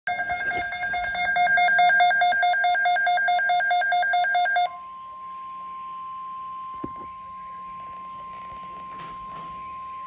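Midland NOAA weather alert radio sounding an alarm: a loud, rapidly pulsing electronic beep for about four and a half seconds, then switching to a single steady tone near 1 kHz, the weather-radio alert tone that comes before a severe thunderstorm watch broadcast.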